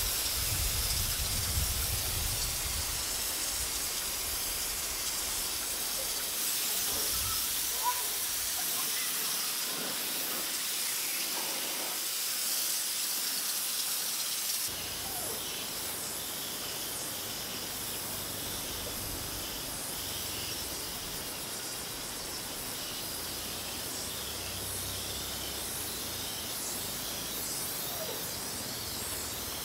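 Compressed-air paint spray gun with a gravity-feed cup hissing steadily as it sprays paint. The hiss drops a little in level about halfway through.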